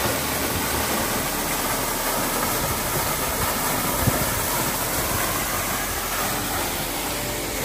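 Steady rushing of water falling at a waterfall, a dense even hiss without any tone, with one small knock about four seconds in.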